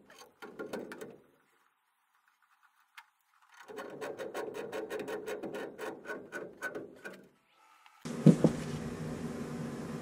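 Rapid mechanical clicking, about a dozen clicks a second, in two runs with a pause between. About eight seconds in, a motor starts running with a steady hum, with one loud thump just after it starts.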